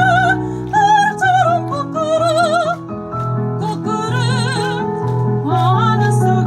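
A woman singing classical, operatic-style vocal music: high held notes with wide vibrato, over sustained low accompaniment chords.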